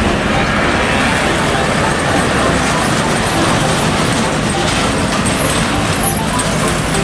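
A car-carrier truck drives past with steady road traffic noise: engine and tyre noise with no clear breaks.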